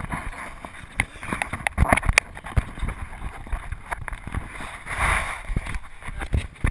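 Wind rushing over a handheld action camera's microphone, with irregular knocks and clicks from the camera being handled while swinging; the rush swells about five seconds in.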